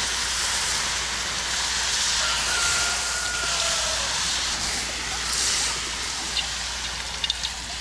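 Hot aluminum casting sizzling and hissing steadily as it is quenched in a bucket of water.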